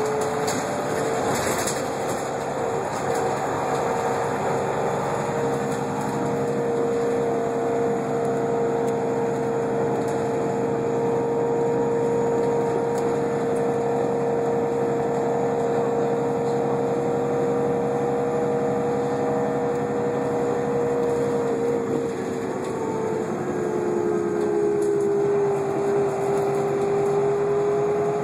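Irisbus Citélis 12 city bus with a Voith automatic gearbox, heard from inside while under way: the drivetrain runs with a steady whine. Its pitch steps down a little about three-quarters of the way through.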